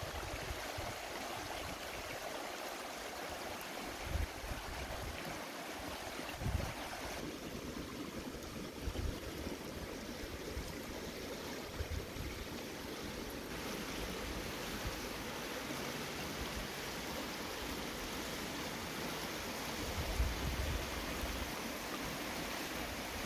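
Shallow river rushing steadily over rocks and small rapids, with a few short low thumps of wind hitting the microphone.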